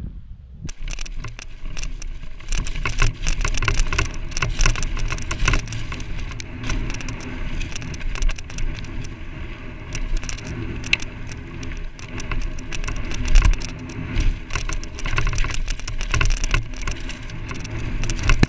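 Mountain bike descending a rough dirt trail at speed: tyres running over dirt and loose stones, with a constant rattle of knocks and clicks from the bike over the bumps and a single harder knock about two-thirds of the way through.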